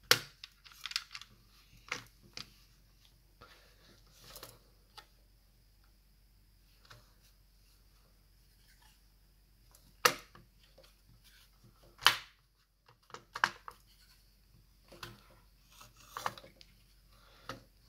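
Plastic receiver halves of an M24 gel blaster being handled and fitted together: scattered clicks and taps, the sharpest about ten and twelve seconds in.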